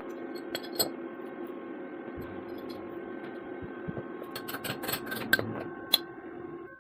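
A homemade lathe gearbox running steadily with a gear whine, and irregular sharp clicks and rattles that cluster a little after halfway through.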